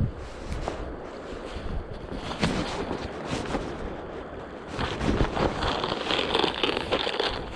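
A mountain stream rushing, with wind buffeting the microphone and scattered short clicks; the noise gets louder about five seconds in.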